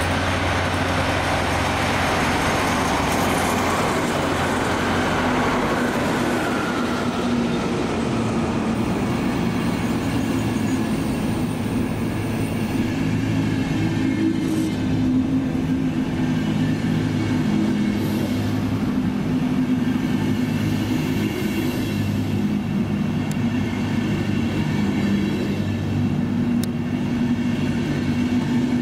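Two DB Class 218 diesel-hydraulic locomotives running in tandem past at low speed as an Intercity train pulls into the station, followed by the coaches rolling by. A broad rushing noise fades over the first few seconds into a steady low drone with light wheel clatter.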